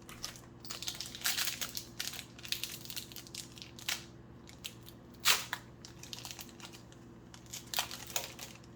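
A trading-card pack wrapper being crinkled and torn open by hand, in irregular crackles with one louder rip about five seconds in.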